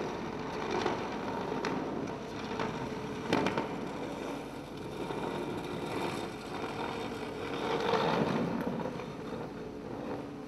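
Concrete block dragged on a rope across a concrete floor: a continuous rough scraping, with a few sharper knocks as it jolts along.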